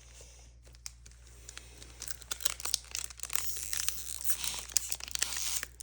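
Foil wrapper of a Pokémon card booster pack crinkling and being torn open by hand, starting about two seconds in, with many small crackles; the pack is stubborn to open.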